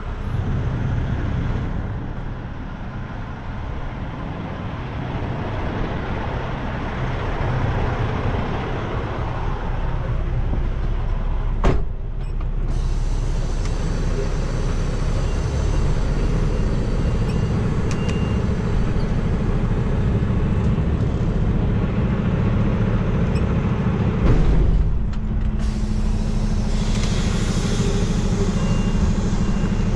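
Semi truck's diesel engine idling steadily, with a sharp click partway through and a short thump later on.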